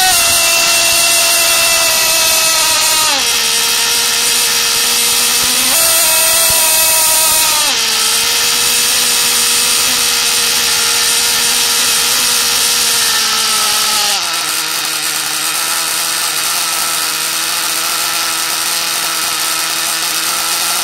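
A tiny Picco P0 .85cc two-stroke glow engine, breathing through a tuned pipe and turning a small propeller, runs flat out with a high-pitched scream. Its pitch drops sharply about three seconds in, jumps back up near six seconds, drops again near eight seconds, and steps down once more near fourteen seconds, where it holds lower to the end.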